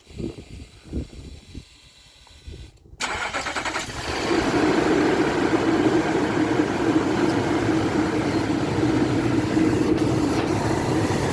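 Nissan NV3500 van's V8 engine cranking and catching about three seconds in, then settling into a steady idle. This is its first start on fresh oil and a new filter after an oil change. A few faint low knocks come before the start.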